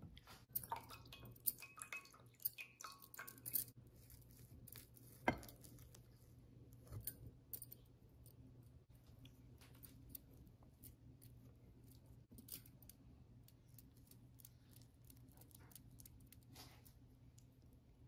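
Faint clicks and soft handling noises of hands scooping and patting wet lentil batter over a glass bowl. They are busiest in the first few seconds, with one sharper knock about five seconds in, all over a steady low hum.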